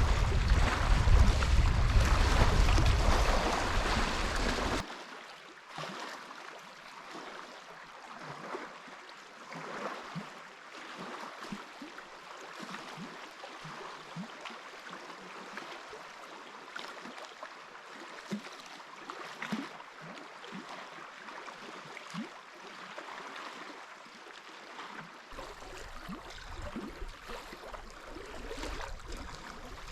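Wind rumbling on the microphone for about the first five seconds, then an abrupt cut to quieter water: small scattered splashes and drips, as from a canoe being paddled on a lake.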